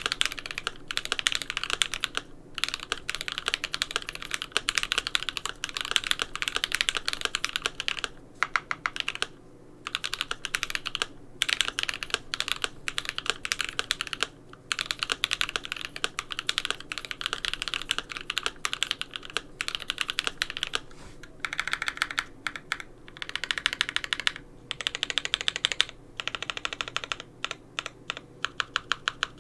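Fast typing on a GMMK Pro mechanical keyboard with lubed Creampaca linear switches, a polycarbonate plate and PBT keycaps: a dense run of key strokes broken by short pauses now and then.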